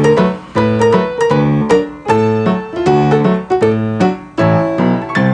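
Background music: a piano playing a bouncy pattern of chords and notes, struck about twice a second.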